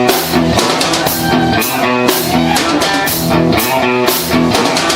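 Live rock band playing, with guitar over a drum kit keeping a steady beat.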